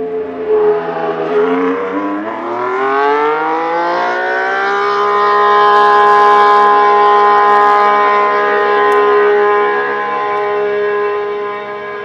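Red Bull Ford V6 turbo-hybrid engine of the 2026 Racing Bulls VCARB03 Formula 1 car. Its pitch dips briefly, climbs smoothly over about three seconds, then holds a steady high note, growing louder and then slowly fading.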